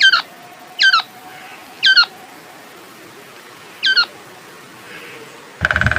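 A quail calling: four short, sharp notes, each sweeping steeply down in pitch. The first three come about a second apart, and the last follows after a gap of about two seconds.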